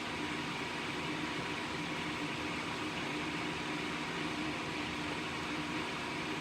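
Steady whir of a small soldering fume-extractor fan running.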